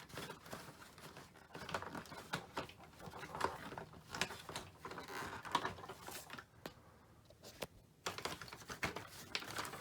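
Irregular plastic clicks, taps and rustling as the outer bag of a Hoover Elite upright vacuum is handled and fitted onto its mounts and clips.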